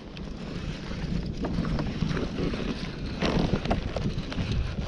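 Wind buffeting the microphone over light water sounds around a kayak, with a few faint knocks.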